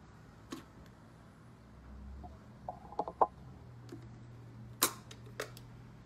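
Hard plastic clicks and snaps as the dust cup and filter of a Kenmore DS4020 cordless stick vacuum are worked loose by hand. There is a quick run of clicks about halfway through, then two sharp snaps near the end; the vacuum motor is not running.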